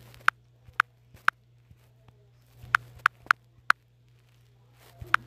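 Fingertip taps on a phone touchscreen: about nine short, sharp clicks in irregular clusters, over a steady low hum.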